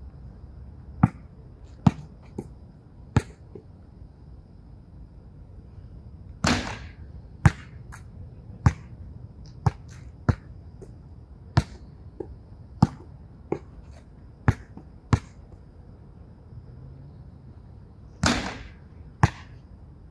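Basketball bouncing on an outdoor hard court, single sharp knocks about once a second, with two longer, louder crashes about six and a half and eighteen seconds in as free-throw bank shots hit the backboard and rim.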